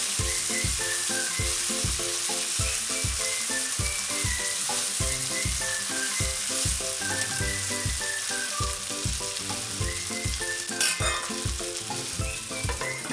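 Chicken pieces sizzling as they fry dry in oil in a kadhai, a steady hiss with no water added. Background music with a regular beat plays underneath.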